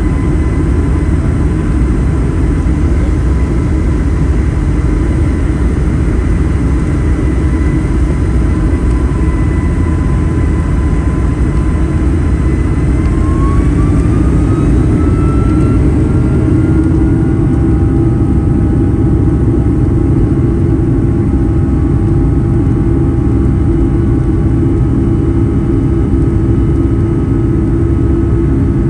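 Boeing 757-200's jet engines heard from inside the cabin over the wing: a steady rumble with a whine, which glides up in pitch about halfway through as the engines spool up to takeoff thrust, while a deeper hum grows and the takeoff roll begins.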